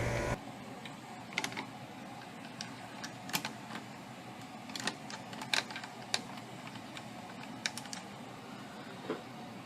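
A 2007 Guardian 4-ton central air conditioner shutting down: its steady running hum cuts off abruptly just after the start. After that come scattered light clicks and ticks over a low background.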